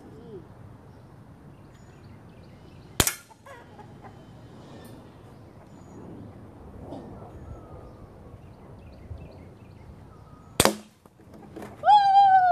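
Two sharp shots from a Walther PPK/S blowback CO2 BB pistol, one about three seconds in and one nearly eleven seconds in. Near the end a woman lets out a loud, wavering, sung-out whoop.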